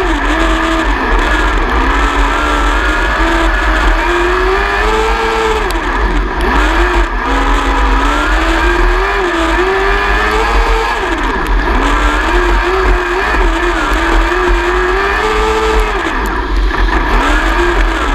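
600cc micro sprint car's motorcycle engine heard onboard at race speed, its pitch climbing on the throttle and then dropping sharply as the driver lifts for each turn, every few seconds.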